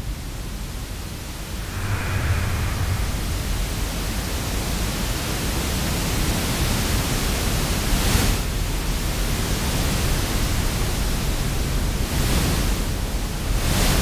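Large ocean wave breaking: a steady roar of rushing, churning white water, swelling about two seconds in and surging again around eight and twelve seconds in and near the end.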